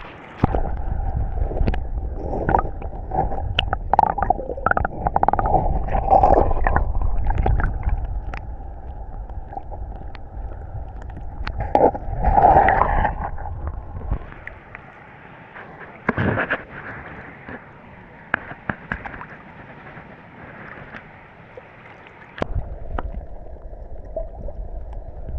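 River water gurgling and sloshing, heard muffled from a camera under the surface, with a heavy low rumble and many small knocks and bumps. The rumble drops away a little past halfway, leaving a quieter spell of light clicks, and comes back shortly before the end.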